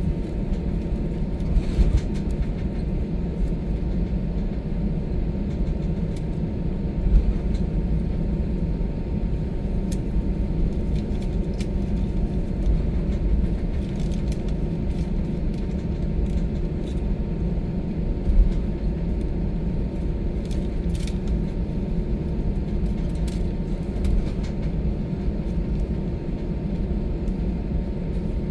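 Steady low rumble of airliner cabin noise on the ground after landing, with the engines running, and a faint steady hum. A few light knocks stand out, the loudest about 7 and 18 seconds in.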